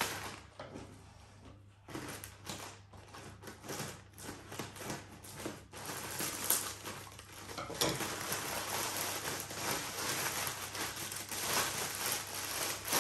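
Plastic mailer bag crinkling and rustling as it is snipped open with scissors and then pulled open by hand, a run of irregular crackles that grows denser and steadier from about halfway.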